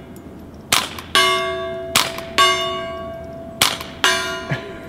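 Three shots from a Ruger Charger .22 LR pistol firing quiet subsonic rounds. Each shot is followed a split second later by a gong ringing out as the bullet strikes it, the ring lasting about a second.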